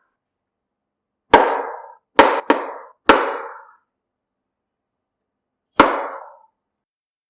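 Five sharp clanks of metal kitchenware, each ringing briefly before it dies away. Two come close together about two seconds in, and the last stands apart near the end.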